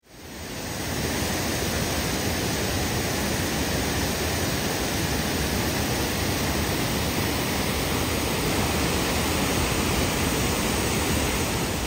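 Steady rush of a waterfall: an even wash of falling water that fades in over the first second and holds unchanged.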